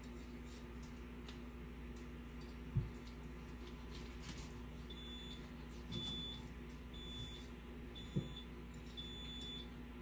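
A knife cutting behind the head of a large opaleye (largescale blackfish) on a wooden cutting board, with a few soft knocks of the blade and fish on the board, over a steady hum. From about halfway through, an electronic beeper sounds five short high beeps, about one a second.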